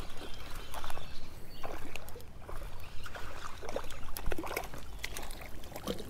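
Hooked smallmouth bass splashing at the water surface as it is fought in: a string of short, irregular splashes with scattered clicks.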